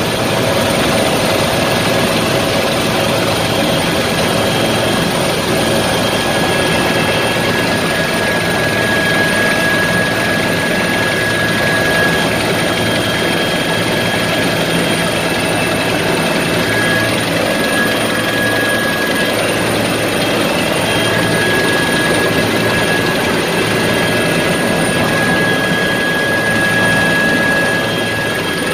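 Helicopter in flight, heard from inside the cockpit: the steady drone of the engine and rotor, with a steady high-pitched whine over it.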